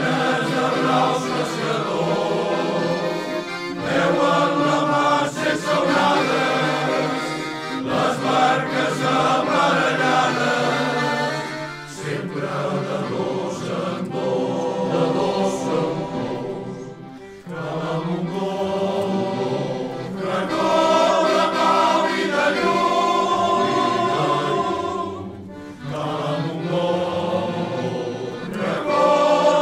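Male choir singing a havanera in several-part harmony, the sung phrases breaking off briefly between lines.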